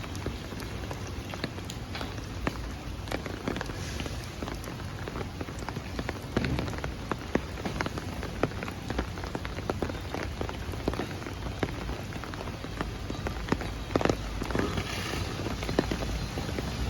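Rain pattering on a hard surface: a steady hiss dotted with many sharp, irregular drop hits, over a low steady rumble.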